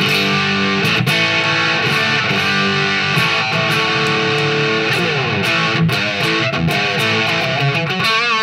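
Epiphone Les Paul Standard Pro electric guitar played through a Marshall MG30FX amp on its OD1 overdrive channel with reverb: ringing chords and single notes, with a sliding note about five seconds in and a wavering vibrato note near the end.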